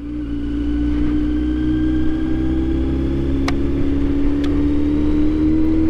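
Kawasaki Z900's inline-four engine running at road speed, its pitch slowly rising, with two sharp clicks about halfway through. The rider hears a ticking he likens to valves and thinks may come from an exhaust not tightened enough.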